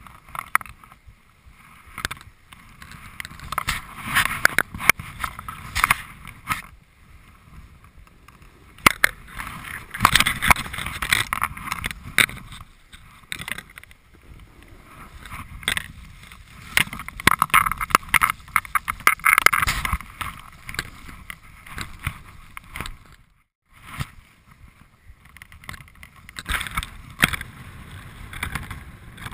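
Snowboard sliding and scraping over packed snow, rising and falling in swells every few seconds as the board turns, with many sharp knocks throughout. The sound cuts out briefly about two-thirds of the way through.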